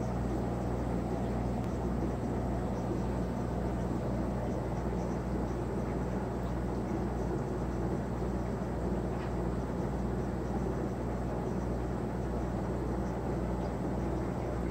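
Aquarium sponge filter running, its air supply bubbling steadily up the lift tube over a constant low hum.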